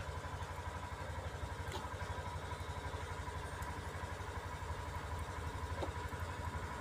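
Steady low rumble of a running motor, with a thin steady tone above it and a couple of faint small clicks.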